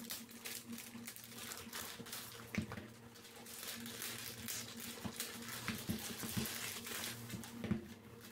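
Thin clear plastic bag rustling and crinkling faintly as boxes are slid out of it and handled, with a few soft knocks.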